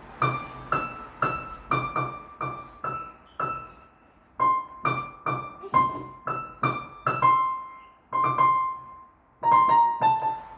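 A child playing a simple single-note melody on the piano from memory, in short struck notes with two brief pauses.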